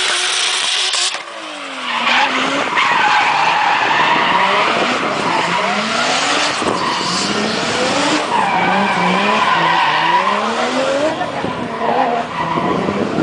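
Drift car engine revving up and down repeatedly while its tyres squeal in a long slide. The sound dips briefly about a second in, then runs loud and steady.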